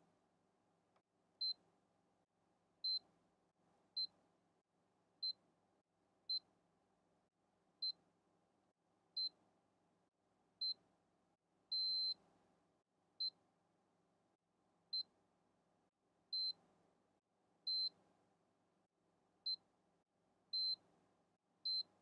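Digital multimeter's continuity beeper giving about sixteen short, high-pitched beeps, roughly one every second, a few held slightly longer. Each beep signals continuity as the probe moves to the next pin of a 0.5 mm pitch flat flex connector, showing that its drag-soldered joint to the breakout pad is good.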